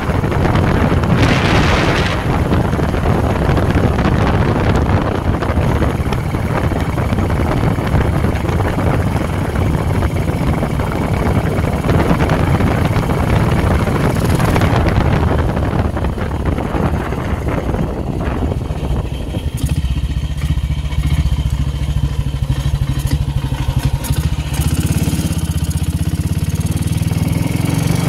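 Classic motorcycle engine running steadily under way, with wind noise over the microphone. About two-thirds of the way through, the wind noise drops away and the engine's low beat stands out.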